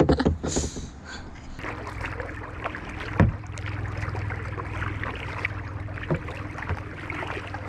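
Kayaks being paddled on calm river water: paddle strokes swishing and dripping, with a few sharp knocks of a paddle against a hull, the loudest about three seconds in.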